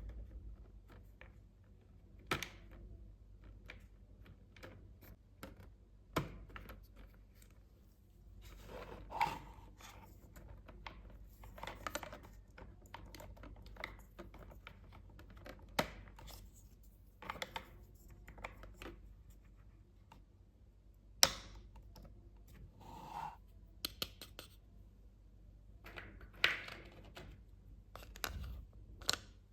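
Hands handling small plastic toy pieces and their packaging: scattered sharp clicks and taps with short bursts of rustling and scraping, irregular and spaced a second or more apart.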